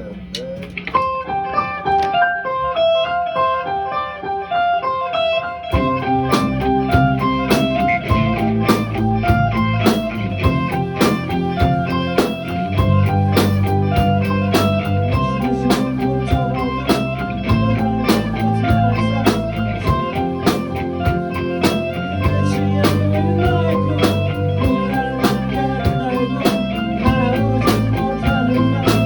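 A band playing live. An electric guitar plays a single-note melodic line alone, then about six seconds in a low bass line and a steady drum beat come in under it.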